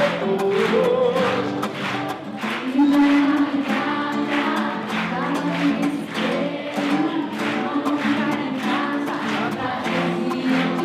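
A sertanejo song: singing voices over acoustic guitar accompaniment.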